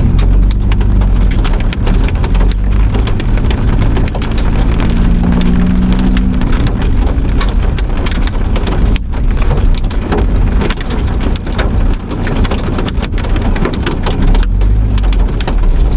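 Heavy rain pelting down in a thunderstorm, a loud, dense and steady patter of drops striking a surface.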